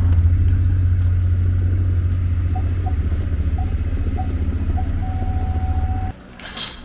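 A motor vehicle's engine running with a loud, steady low rumble, cutting off abruptly about six seconds in. Over it, a short beep starts about two and a half seconds in, repeats faster and faster, then holds as one continuous tone until the rumble stops. A brief hiss follows near the end.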